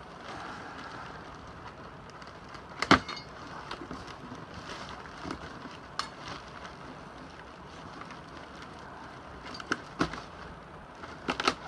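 Cardboard packing box being cut open and handled, with packing tape cut and pulled away. A few sharp knocks or clicks, the loudest about three seconds in and several more near the end.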